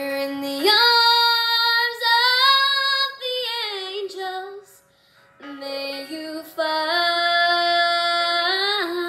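A girl singing, holding long notes: a phrase that rises and holds, a short break about five seconds in, then another long held note that falls away near the end.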